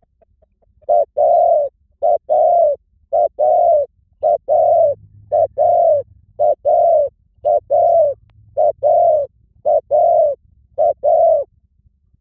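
Spotted dove cooing: about ten pairs of coos, each a short note followed by a longer one, repeated about once a second, starting about a second in.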